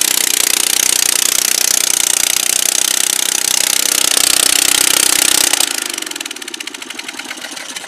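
Briggs & Stratton 9 hp single-cylinder engine on a rear-engine mower running fast and loud right after starting. About two-thirds of the way through it falls off to a lower, uneven speed with separate firing pulses, as it is taken off choke while still cold.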